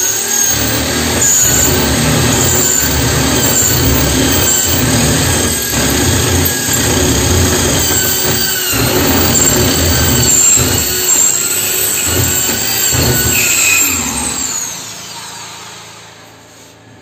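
Electric drill with a 25 mm spade bit boring through a wooden door. It runs steadily under load, its pitch dipping now and then as the bit bites. About fourteen seconds in the trigger is released and the motor winds down, the hole now through.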